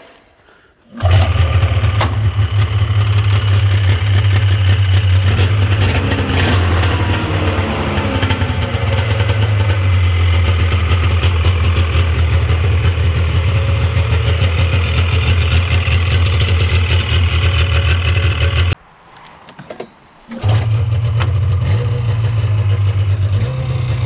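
Polaris 440 Pro X fan-cooled two-stroke snowmobile engine starting about a second in and running steadily, its no-start cured by a carburetor cleaning. After a brief break it runs again, rising a little in pitch near the end.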